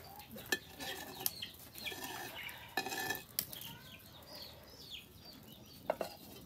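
Steel ladle scraping and clinking against an aluminium pot as cooked rice is stirred and fluffed, with a few sharp clinks through the stirring. Chickens call in the background.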